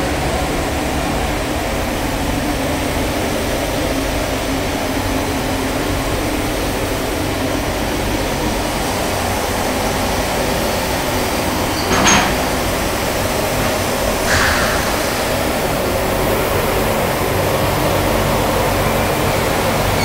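Steady running noise of a water heater tank enamel coating line's machinery: a dense, even whirr with a low hum underneath. Two brief louder noises stand out a little past the middle.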